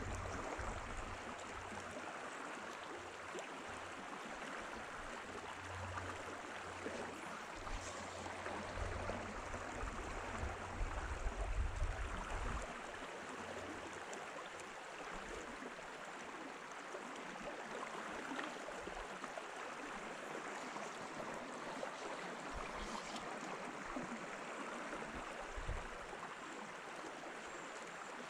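Steady rushing of a small river's flowing water. A low rumble sits underneath for the first twelve seconds or so, then stops.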